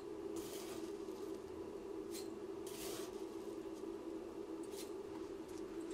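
Dry rolled oats rustling as a wooden spoon scoops them from a plastic tub and tips them into a ceramic bowl, a few brief scoops, over a steady low hum.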